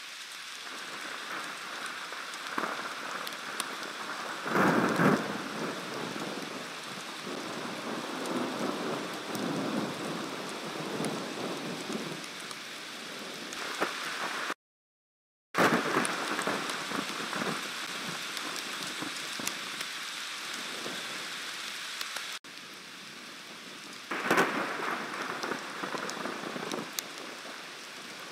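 Steady rain of a thunderstorm, with thunder rumbling three times: about five seconds in, just after a brief cut to silence near the middle, and again near the end.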